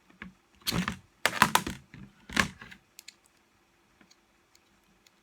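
Clicks and clatters of hard parts being handled as the guide is pulled out of a partly dismantled Skil 4900 reciprocating saw, a quick run of them over about two seconds, then quiet.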